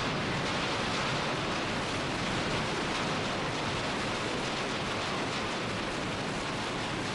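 Steady, even noise from an airport terminal shaking in a major earthquake: the building and its suspended ceiling panels rattling as the panels sway loose.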